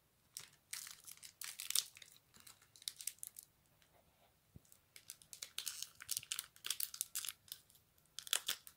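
Foil wrapper of a Pokémon booster pack crinkling and tearing as it is ripped open by hand. The crackling comes in quick clusters, with a short pause about halfway and a last burst near the end.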